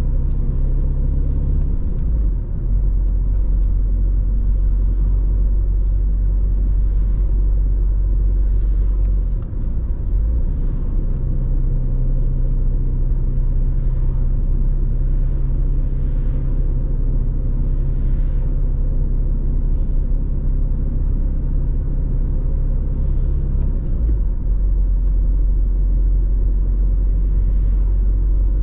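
Inside the cabin of an Audi A4 B6 on the move, its 1.9 TDI four-cylinder diesel and the road noise make a steady low drone. The level dips briefly about two seconds in and again about nine seconds in, and the engine's pitch shifts after each dip.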